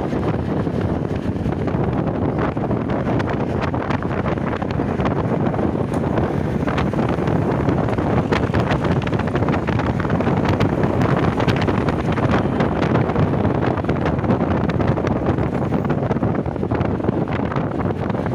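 Wind rushing over the microphone at the open window of a moving vehicle, mixed with its steady road and traffic noise.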